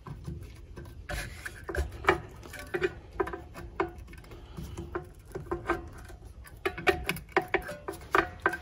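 Long-nose pliers gripping and pulling worn Velcro off a Bona floor edger's sanding pad: irregular short scraping, rubbing and tearing clicks as the old disc is worked free.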